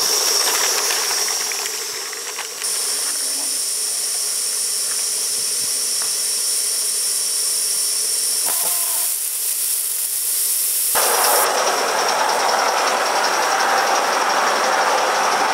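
Gauge 1 live-steam model of a BR Standard Class 4MT tank locomotive running with a train of coaches: a steady hiss of steam. About eleven seconds in, a louder rattle of running gear and wheels on the track joins the hiss.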